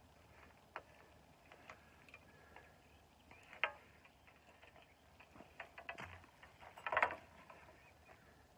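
Scattered clicks and knocks of handling as a barbel is unhooked and lifted out of a landing net, with one sharper knock about three and a half seconds in and a short burst of clatter around seven seconds.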